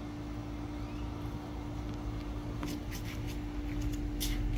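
Steady low hum of running machinery, with a few short, sharp ticks about two and a half to four seconds in.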